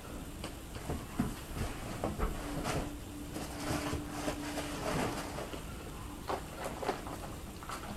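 Craft supplies and their packaging being handled during an unboxing: rustling with scattered clicks and knocks.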